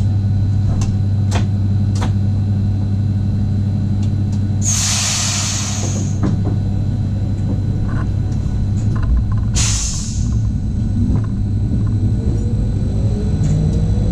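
Regional train heard from the driver's cab: a steady low hum with a few sharp clicks, two bursts of hissing air about five and ten seconds in, and near the end a whine that rises steadily in pitch as the train picks up speed.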